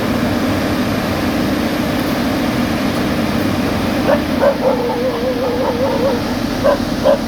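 A heavy construction machine's engine running steadily, with a dog barking and whining from about four seconds in.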